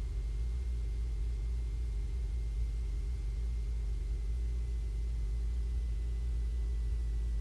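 Cessna 150's four-cylinder Continental O-200 engine and propeller running steadily at reduced approach power, heard inside the cabin as an even low drone.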